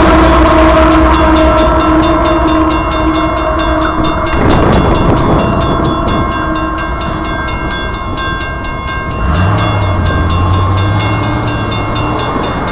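Grade-crossing warning bell ringing in fast, even strokes while the signal lights flash, over the fading noise of the departing Union Pacific coal train; a steady tone in the train noise stops about four seconds in. About nine seconds in, a low engine hum comes in as the gates lift and road traffic starts across.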